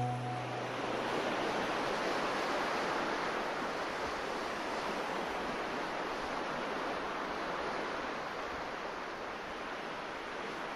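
A steady, even hiss, with no pitch, rhythm or separate events.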